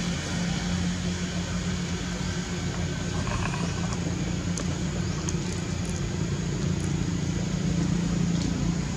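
Steady low drone of an engine running, unchanging, with a few faint ticks over it.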